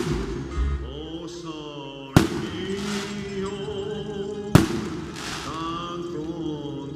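Aerial firework shells bursting: three sharp bangs about two seconds apart, over music.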